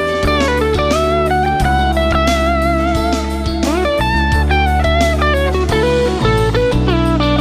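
Sterling by Music Man Cutlass CT30SSS electric guitar playing a lead melody with a few string bends, over a backing track.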